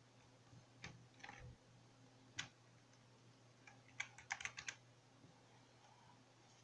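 Faint clicks of computer keyboard keys: a few single keystrokes, then a quick run of several about four seconds in, over a faint steady low hum.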